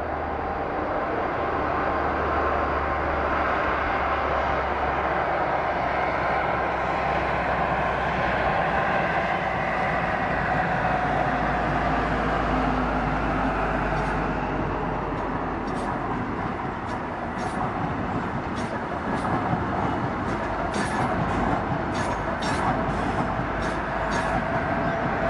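East Midlands Trains HST with Class 43 diesel power cars passing: a steady drone of the power car and running noise. About halfway through, a rapid, irregular clatter of wheel clicks begins as the coaches cross the junction's rail joints, coming thicker toward the end.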